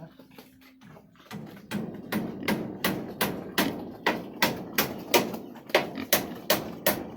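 Rhythmic knocking: sharp, hard strikes repeated at about three a second, starting a second or so in and growing louder.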